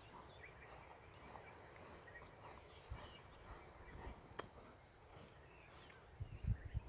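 Faint bush ambience: short high insect chirps, a few sharp clicks, and low rumbling that builds near the end.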